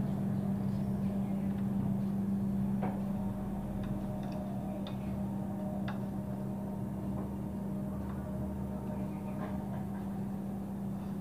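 Scattered light clicks and taps of a hand screwdriver working screws into the plastic front cabinet of a CRT TV as its power switch is fitted, over a steady low hum.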